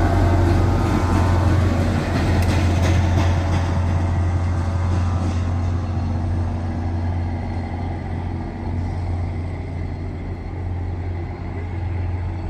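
NJ Transit diesel locomotive passing and pulling away, its engine running with a steady low rumble that slowly fades, with a few sharp clanks about two to three seconds in.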